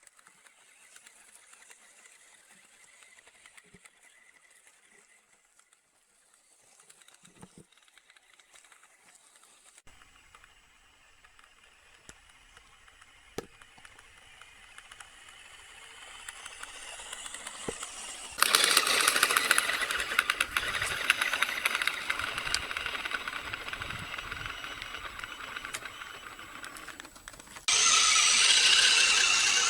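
An RC truck's small electric motors and gearbox whining as it drives, with a constant fine rattle and clicking. Faint at first, the sound gets much louder about two-thirds of the way through and louder again near the end.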